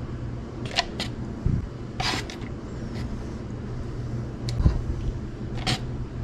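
A metal spoon skimming scum off a boiling pot of meat, with about five short clinks and scrapes against the pot over a steady low hum.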